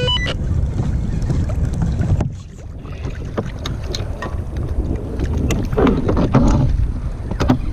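Wind buffeting the microphone over water slapping and sloshing against a kayak hull, with scattered small splashes and knocks.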